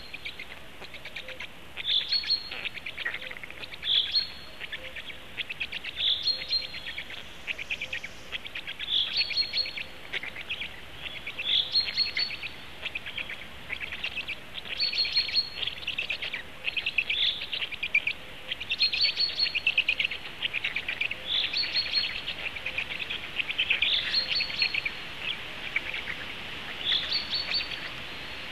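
A songbird in the surrounding forest singing the same short, quick phrase over and over, about every two to three seconds.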